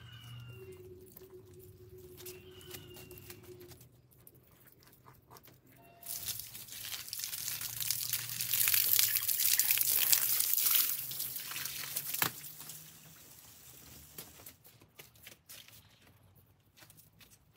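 Water from a hose gushing into and rinsing out the gutted belly cavity of a large hanging fish, a loud hiss starting about six seconds in and cutting off about six seconds later. Before it come faint scattered clicks as the fish is cut open with scissors.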